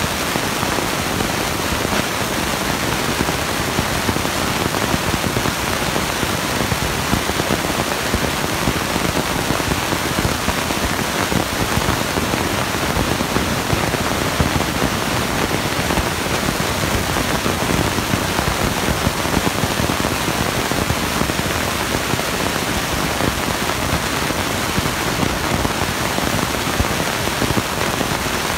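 Monster truck engines running at full noise in an arena, heard as a loud, steady, crackling roar so dense that it swamps the phone's microphone and shows no distinct engine note.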